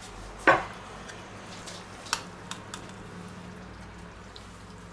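A stainless steel pot set down on a wooden board with one sharp knock, then a few light clinks of a spoon against the pot as rice is scooped out.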